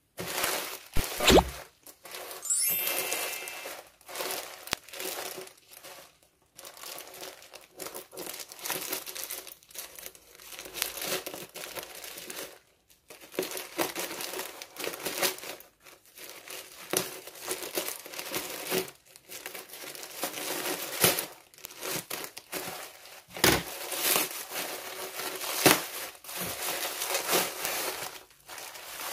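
Plastic courier mailer bag crinkling and rustling in irregular bursts as it is handled and cut open with scissors, then bubble wrap crinkling as the wrapped package is pulled out.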